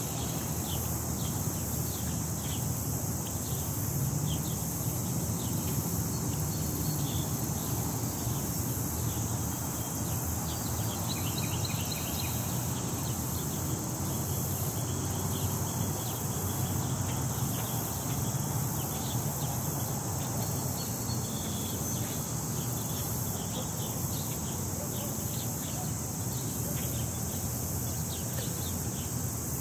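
Outdoor ambience with wind rumbling on the microphone in gusts, a constant high-pitched hiss, and a steady scatter of short, high chirps.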